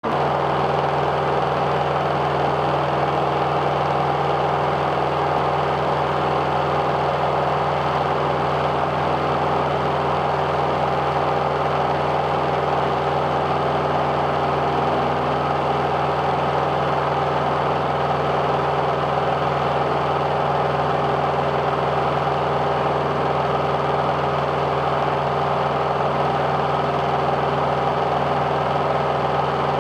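Single-engine light aircraft's piston engine and propeller running steadily in level cruise: a constant, unchanging hum with no rise or fall in pitch.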